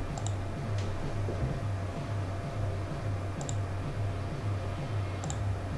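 Quiet background music carried by a low pulsing bass, about three beats a second, with a few faint, sharp clicks scattered through it.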